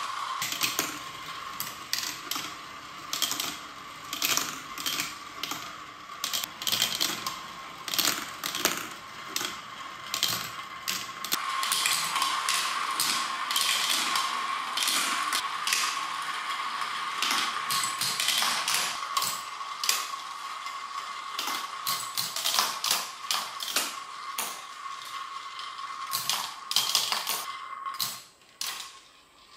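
Marbles rolling and clattering through a plastic marble-run track, many quick irregular clicks with a steady whirring hum beneath. It thins out and goes quiet near the end.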